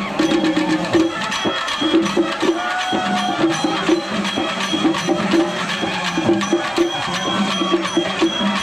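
Singari melam: a troupe of chenda drums struck fast with sticks in a driving, dense rhythm. A short low melodic phrase repeats over and over beneath the drumming.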